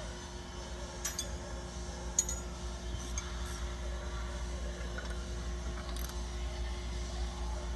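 A few faint, sparse metallic clicks and clinks from hand tools working a rear shock absorber's bottom mounting bolt, over a steady low hum.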